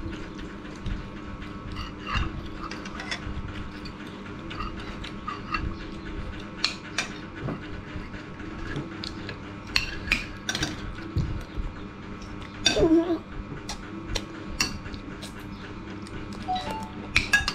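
Metal spoons clinking and scraping against ceramic bowls and plates as two people eat, in many short, irregular clicks over a steady low hum. A short pitched sound comes about two-thirds of the way through.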